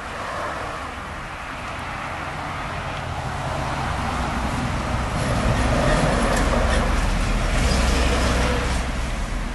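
A truck passing on the road, its engine rumble and tyre noise growing louder over several seconds and loudest near the end before easing off.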